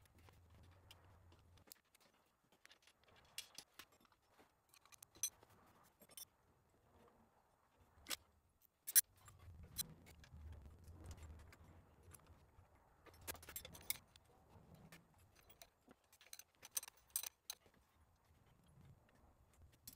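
Light metallic clicks and clinks of hand tools and fittings being handled in an engine bay, coming in irregular clusters, with one sharper click about nine seconds in.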